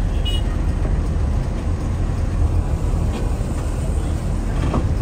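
Steady low rumble of a Mercedes-Benz OH 1521 coach under way, heard from inside the cabin: diesel engine and road noise while driving.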